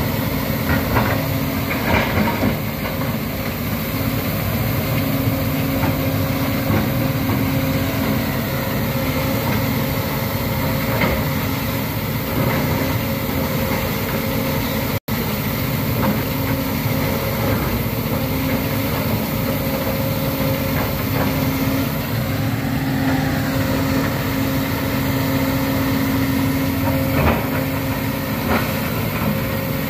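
Sumitomo crawler excavator's diesel engine running steadily while the machine digs and moves laterite, with a few short knocks of the bucket on rock. The sound drops out for an instant about halfway through.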